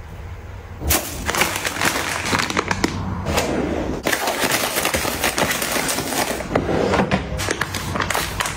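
Soft plastic packaging crinkling and rustling as packs of tissues and wet wipes are handled, with small clicks and taps mixed in.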